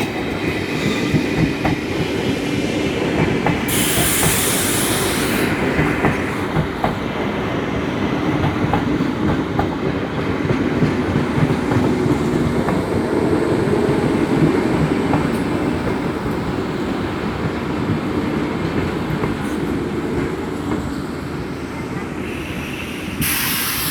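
Toshiba electric multiple-unit train rolling into a station, its wheels clattering over the rail joints above a steady rumble. A loud hiss comes about four seconds in and again near the end.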